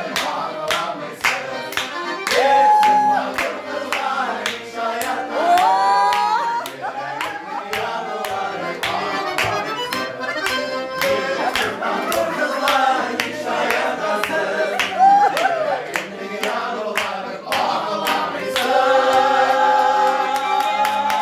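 Button accordion (bayan) playing a tune while a group of men sing along and clap in time, about two claps a second.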